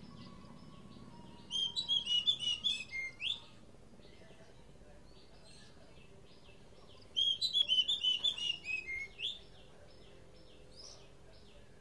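Oriental magpie-robin singing: two loud bursts of rapid notes that step down in pitch, about six seconds apart, with fainter repeated chirps in between.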